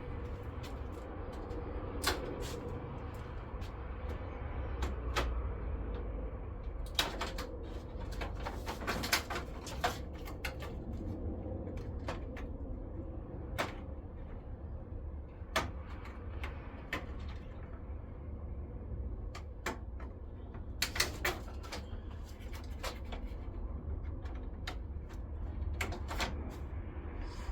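Scattered clicks, knocks and rattles of hand tools and car parts being handled, over a steady low rumble.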